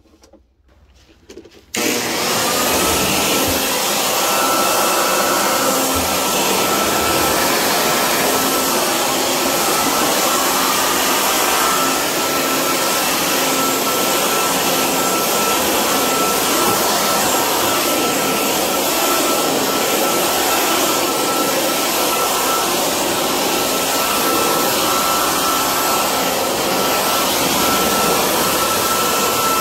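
Small corded electric leaf blower switched on about two seconds in, then running steadily: a rush of air with a high, steady motor whine on top.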